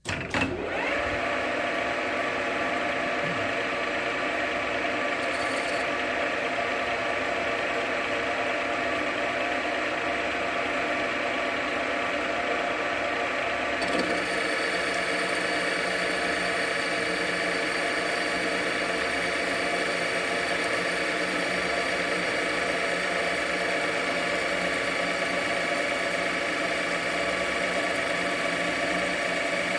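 JFMT metal lathe starting up, its note sweeping up as it comes to speed, then running steadily with a gear whine while it takes a heavy 3 mm depth-of-cut turning pass on a stud. About halfway through the sound shifts as a deeper hum and a higher tone join in.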